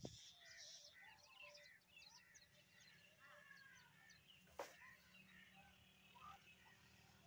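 Faint chorus of several small birds chirping and calling over each other, with one sharp click about four and a half seconds in.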